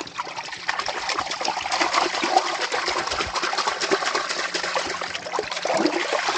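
Water splashing and trickling in a steady, crackling wash that cuts off suddenly at the end.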